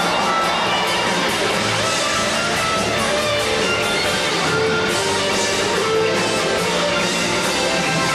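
Live rock band playing, with electric guitar to the fore over a full band, loud and steady.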